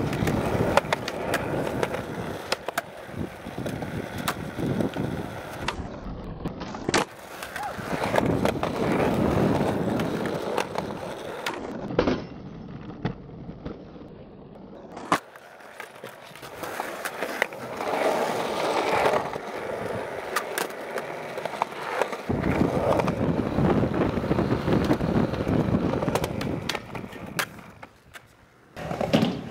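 Skateboard wheels rolling on concrete, broken by many sharp clacks of the board popping and landing and the scrape of the trucks grinding a ledge. The rolling noise starts and stops abruptly several times as one clip follows another.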